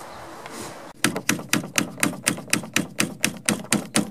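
Rapid, even hammer taps, about four a second, starting about a second in: the EVAP purge solenoid's mounting bracket being hammered down to seat it on its metal clip.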